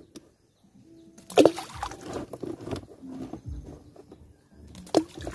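Shallow creek water sloshing and splashing, with two sharper splashes, one about a second and a half in and one near the end.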